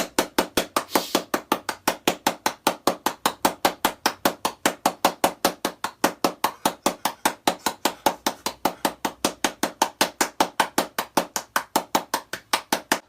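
Rapid, even knocking, about five sharp strikes a second, keeping a steady rhythm throughout.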